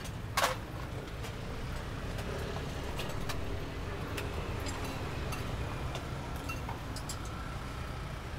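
Steady low rumble of a roti street stall, with one sharp metal clink about half a second in and a few lighter clinks later, including a spoon against the steel cup of filling.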